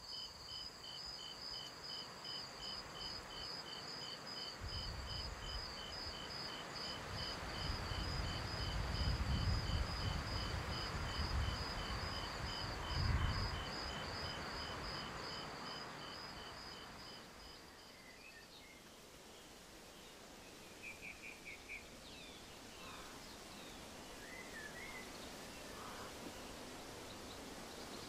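Crickets chirping in a steady pulsing rhythm, under a low rumbling swell that builds and fades midway. About two-thirds through the crickets stop, and a few birds chirp and trill: a night-to-morning nature ambience.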